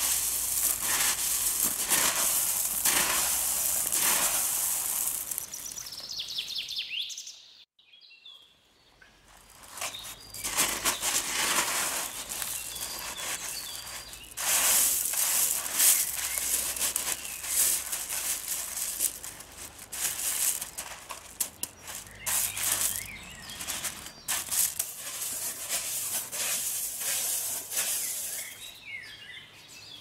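Pebbles crunching and clattering in many quick rattles as hands dig into a gravel bed, with birds chirping in the background. The sound drops out briefly about eight seconds in.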